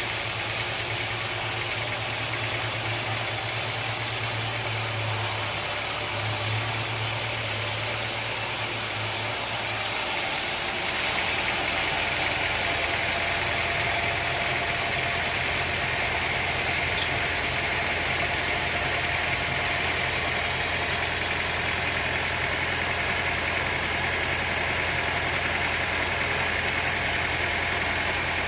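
Sawmill machinery running steadily with a constant low hum and rushing noise. About ten seconds in, the sound changes and becomes slightly louder and brighter, then holds steady.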